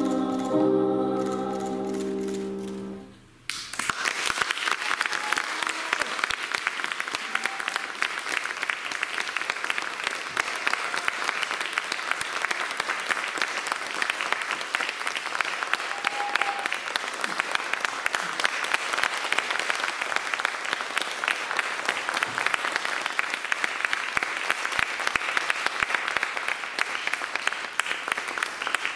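Two young girls' voices hold the final note of a duet over a Steinway grand piano, and the note fades out about three seconds in. Audience applause then breaks out at once and continues steadily.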